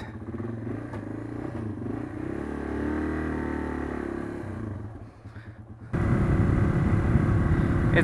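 Yamaha XT225's single-cylinder engine running, rising in pitch about three seconds in and then fading as the bike moves off. About six seconds in it switches abruptly to a louder, steady rumble of engine and wind noise from a helmet-mounted microphone while riding.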